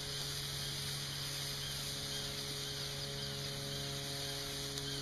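Steady, even hum of a boat motor running at a constant pitch, with faint bird chirps over it.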